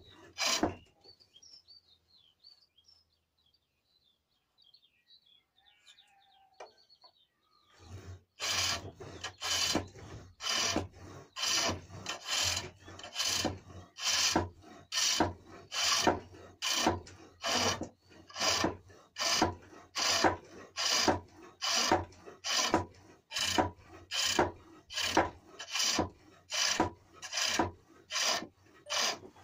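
A steel turning tool cutting the inside of a small cherrywood bowl on a pole lathe, giving a rasping scrape with each downstroke as the wood spins against the blade. A stroke ends just after the start; after a quiet gap of about seven seconds the strokes resume in an even rhythm, about one and a half a second.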